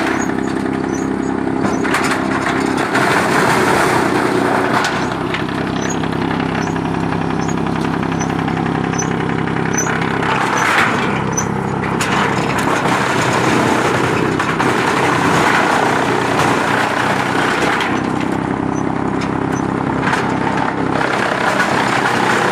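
Heavy-duty wood chipper running steadily, with a few sharp cracks through the run.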